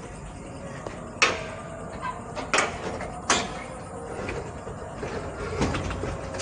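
Three sharp knocks over a steady low background noise, the first about a second in and the loudest.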